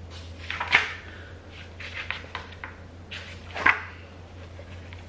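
Pages of a paper planner being turned and handled: a few short, sharp paper rustles, the loudest about a second in and again about three and a half seconds in, over a steady low hum.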